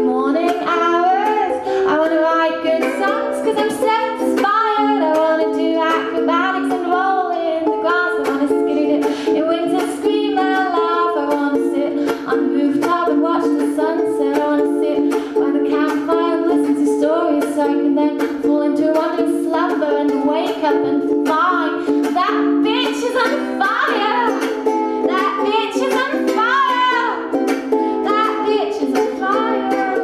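A woman singing a song while strumming a ukulele, in a live performance with the small room's echo.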